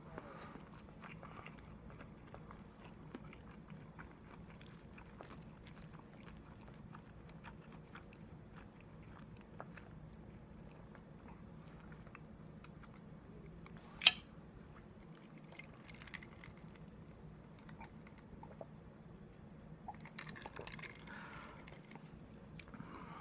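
A person chewing and biting food, with faint crunches and small clicks throughout, in a small room. One single sharp click stands out about fourteen seconds in.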